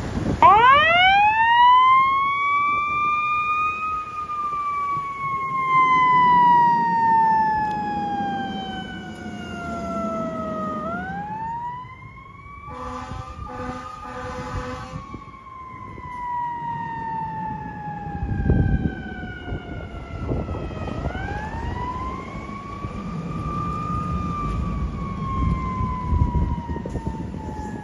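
Fire engine's mechanical siren winding up and then coasting down in long, slowly falling wails, spun back up twice. A few short air-horn blasts sound about halfway through, and the truck's engine runs underneath.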